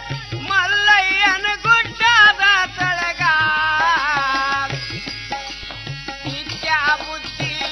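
Kannada folk bhajan music: tabla beating a steady rhythm under a melody line that bends and slides in pitch.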